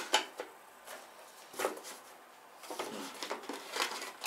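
Cardboard headphone box and its inner packaging being handled: a few short knocks and rustles, then a run of small knocks near the end as a lid is fitted onto the box.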